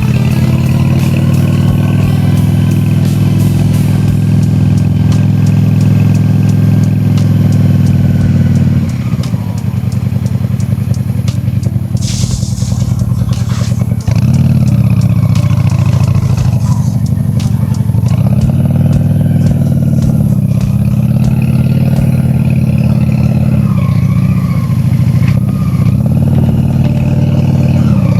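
Honda Shadow V-twin cruiser engine running under way: a steady run, an easing of the throttle about a third of the way in, then repeated rises and falls in engine pitch as the revs climb and drop. A brief hiss near the middle.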